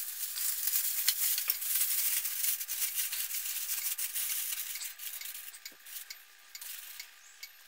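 Aluminium foil crinkling and crackling as hands crumple it and press it around a bowl. It is densest over the first five seconds, then thins to scattered crackles near the end.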